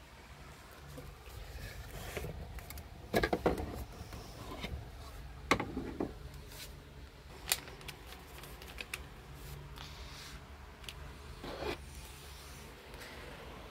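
Handling noise: scattered light clicks and knocks, a quick cluster about three seconds in and single ones later, as a phone is carried and a plastic toy plate is picked up, over a faint steady low hum.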